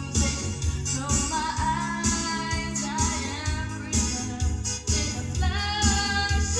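Karaoke music with a steady beat, and a woman singing along over it through the microphone.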